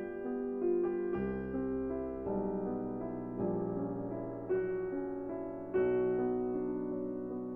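Background piano music: slow, sustained chords with a new chord struck about once a second.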